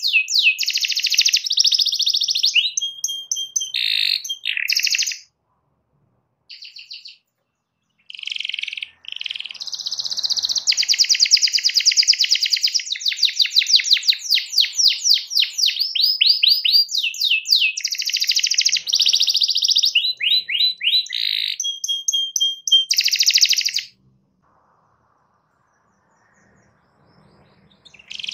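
Domestic canary singing a long, loud song of fast trills and rapidly repeated notes, with an occasional held whistled note. The song breaks off briefly twice in the first eight seconds, then stops for about four seconds near the end before starting again.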